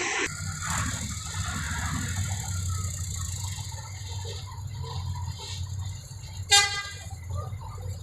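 Diesel engine of a Fiat Hitachi 150 excavator running steadily at a low pitch, with one short horn toot about six and a half seconds in.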